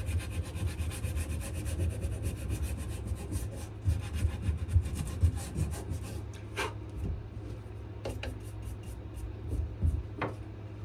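Sandpaper rubbed by hand over a wenge-and-maple knife handle in quick, even back-and-forth strokes.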